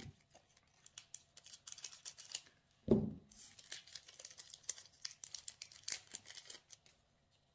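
The foil wrapper of a Pokémon trading-card booster pack crinkles and crackles in short bursts as it is opened by hand. There is one dull thump about three seconds in.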